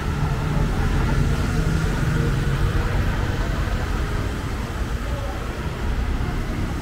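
City street traffic: engines of passing motor vehicles running in a steady low rumble, with voices in the background.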